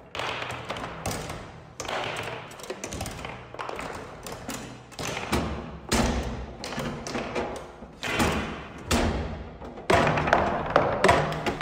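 Music with heavy thuds that ring on, landing at uneven intervals a second or two apart and coming faster and louder near the end.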